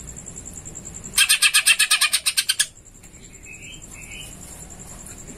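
Caged greater green leafbird (cucak ijo) singing: a loud rapid chattering rattle of about ten notes a second lasting a second and a half, then two short chirps, in a song full of mimicked Eurasian tree sparrow (burung gereja) calls.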